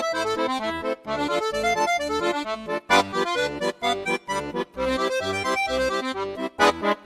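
Computer-made music in a sustained, accordion-like instrument sound: a dense run of quickly changing notes over a pulsing bass. It breaks off briefly about a second in and turns into short, choppy stabs near the end.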